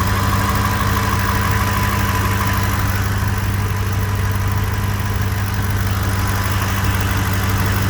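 2004 Ford F-150's 5.4-litre V8 idling steadily with the accessory drive belt off and new timing chains fitted.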